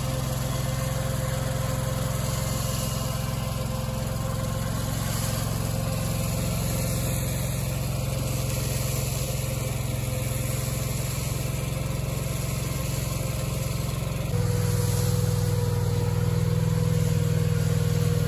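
Toro Dingo compact tracked loader's engine running steadily while fine gravel spills from its bucket into plastic paver grids. The engine note gets louder and a little deeper about fourteen seconds in.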